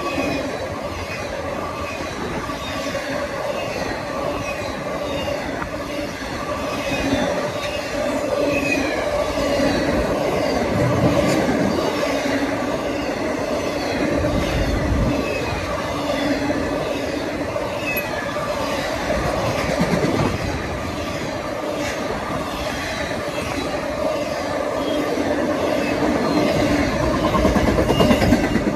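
Intermodal freight train's cars, loaded with trailers and containers, rolling past: steel wheels clicking over the rails, with steady ringing tones from the wheels and rails.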